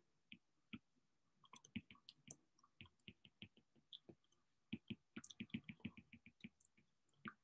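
Faint, irregular ticks of a stylus tip tapping on a tablet's glass screen during handwriting, coming in quick clusters as each letter is written.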